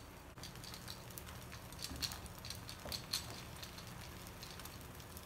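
Cheese being grated on a small handheld grater: a series of short, faint scraping strokes at an uneven pace.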